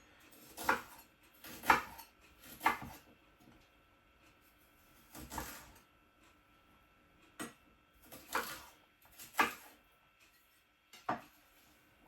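Kitchen knife cutting ginger into small pieces on a chopping board: separate knocks about once a second, with a pause of a couple of seconds partway through.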